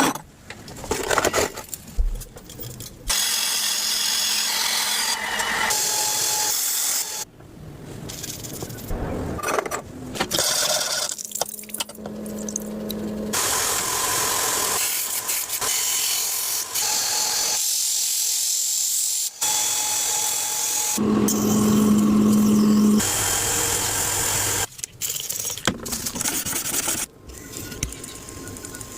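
Workshop power tools running in a string of short clips, each cutting off abruptly into the next, with a steady whine or hum in some clips and noisier grinding-like sound in others.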